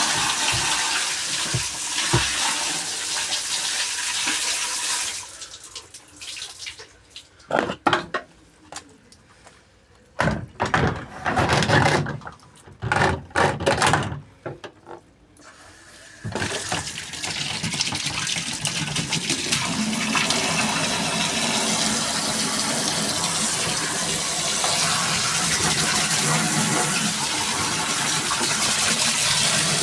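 Water running steadily, as from a tap, stopping about five seconds in; a stretch of scattered knocks and splashes follows, then the water runs steadily again from about halfway through.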